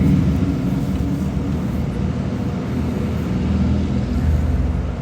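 Steady low vehicle rumble, swelling slightly about four seconds in.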